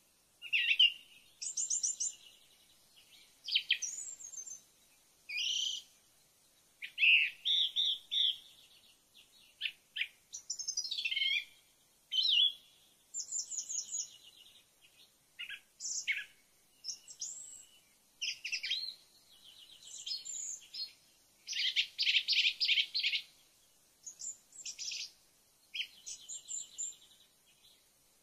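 Songbird singing a string of varied short phrases (fast trills, rapid repeated chirps and quick whistled glides), each about a second long with brief pauses between them.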